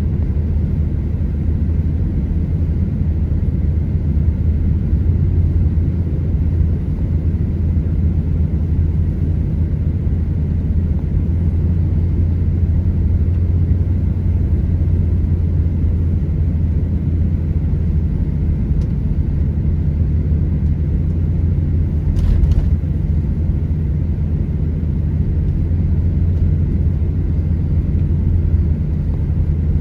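Steady low rumble of a car driving on a snow-covered road, with tyre and engine noise heard from inside the cabin.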